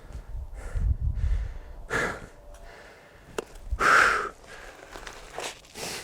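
A man breathing hard and letting out forceful exhalations while chopping a log with an axe, the loudest about four seconds in. A single sharp knock comes shortly before it.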